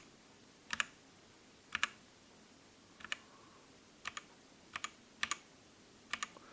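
MOTOSPEED K87S mechanical keyboard with red switches: single keys pressed one at a time, about eight presses roughly a second apart, each a quick down-and-up click pair. The keys are being tapped to cycle through the backlight's lighting modes.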